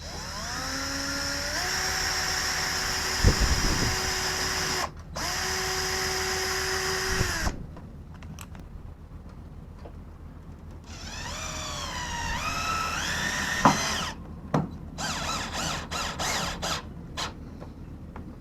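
Power drill running in several bursts: its motor whine rises as the trigger is squeezed and then holds steady for a few seconds, twice. After a pause it climbs in steps, then gives a string of short blips near the end, with a couple of sharp clicks.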